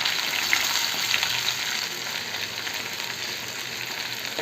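Chopped onion with green chillies, coriander and mint frying in hot oil in a pan: a steady sizzle with small scattered crackles, easing slightly as it goes.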